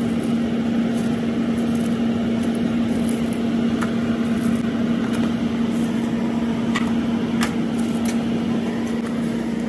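Conveyor pizza oven's fans running with a steady hum and one strong low tone, with a few light clicks from the tongs and cardboard box in the second half.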